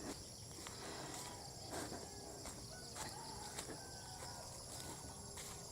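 Faint rural morning background: insects chirring steadily and high with a regular pulse, and a few short, faint bird chirps.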